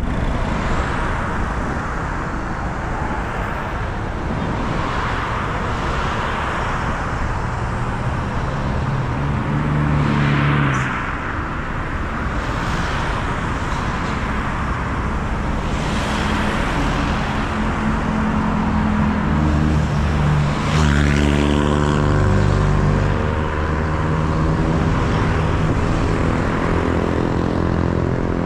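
Road traffic heard from a car driving through town: steady engine and tyre noise with other vehicles passing. About two-thirds of the way through, an engine revs up, rising in pitch.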